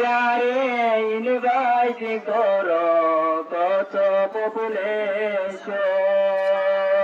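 A man singing a Bengali Islamic devotional song (gojol) solo into a microphone, holding long notes with wavering, ornamented glides in pitch.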